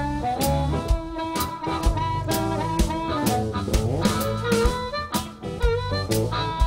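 Live blues band playing: two harmonicas wailing bending notes over an electric bass line and a steady drum-kit beat.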